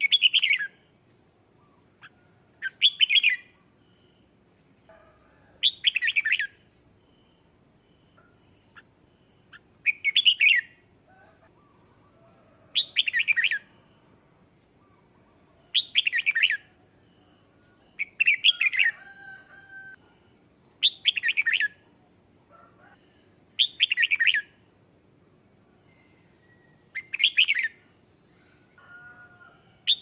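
Red-whiskered bulbul singing short, loud song phrases, one every two and a half to three seconds, with a few softer calls between them. It is a lure bird's song, played to call in and provoke wild bulbuls.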